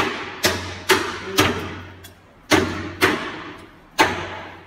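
Meat cleaver chopping a large fish into chunks on a plastic cutting board: seven heavy chops, four about half a second apart, a short pause, then three more, each leaving a brief echo.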